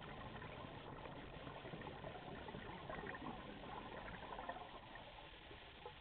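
Scuba diver exhaling through a regulator, heard from the helmet camera underwater: a long stream of bubbling that eases off about five seconds in.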